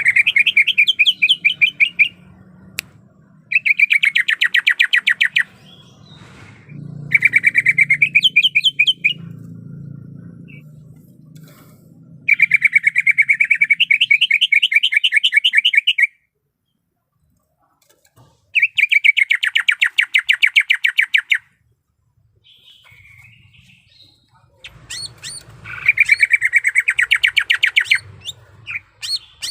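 Cucak ijo (greater green leafbird) singing in about six bouts of rapid, trilled repeated notes, each bout lasting two to four seconds with short pauses between them.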